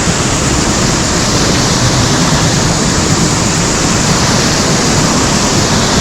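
Loud, steady rush of a mountain stream's water pouring over rocks close by.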